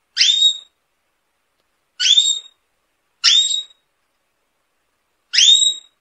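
Domestic canary giving four short calls, each a quick upward sweep in pitch lasting about half a second, spaced one to two seconds apart.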